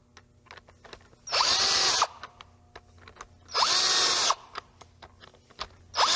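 Cordless drill driving the bolts of a Metraseal link seal in short runs of under a second: twice, with a third starting at the very end, each spinning up quickly then holding steady. Light clicks fill the gaps as the socket moves from bolt to bolt. The bolts are being tightened in turn to squeeze the rubber links against the pipe and the hole wall.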